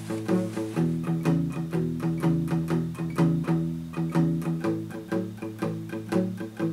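Guitar music: plucked notes picked in a steady, even rhythm over sustained low bass notes.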